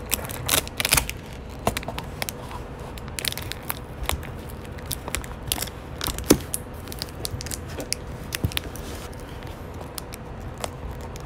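Irregular clicks, taps and crinkly rubbing from a phone camera being handled and repositioned close to its microphone.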